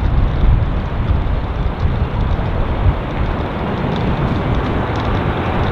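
Jet engines of an Airbus A340-300, four CFM56-5 turbofans, heard as a loud, steady rush of noise with a heavy low rumble.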